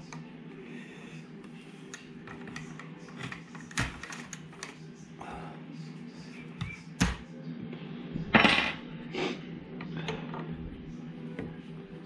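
Hex key and small metal parts of a rifle rest's joystick linkage clicking and clinking as the linkage is unscrewed and taken off, with a louder clatter about eight seconds in, over a steady low hum.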